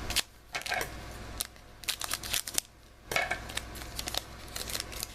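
A trading-card pack wrapper crinkling and tearing open, with a string of sharp clicks and rustles as the cards are handled.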